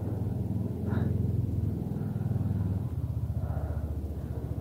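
Engine running steadily at idle, a low rumble with a fast, even pulse.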